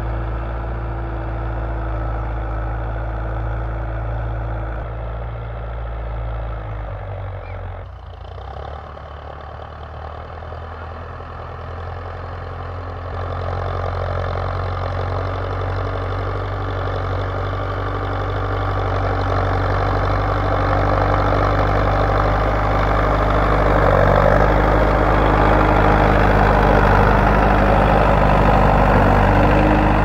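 Belarus 510 tractor's diesel engine running steadily under load as it pulls a plough through dry soil. The sound dips briefly about eight seconds in and grows louder and noisier over the last third.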